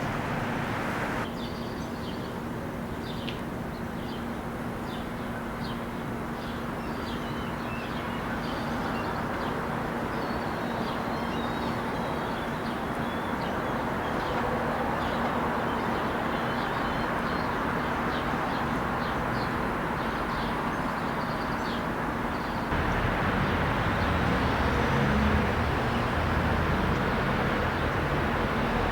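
Outdoor background noise with a steady low hum and birds chirping. About 23 seconds in it cuts to a louder, deeper rumble.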